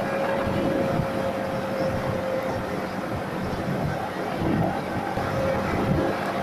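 Yamaha MT-15 V2's 155 cc single-cylinder engine running steadily at highway cruising speed in sixth gear, its even hum holding one pitch under a haze of wind and road noise.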